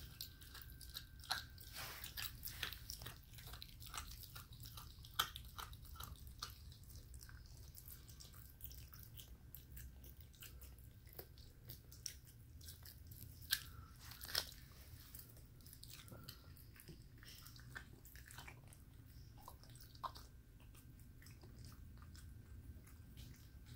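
A puppy chewing and crunching mashed raw chicken wings, bone in. Faint, irregular wet clicks and crunches, with a few louder crunches scattered through.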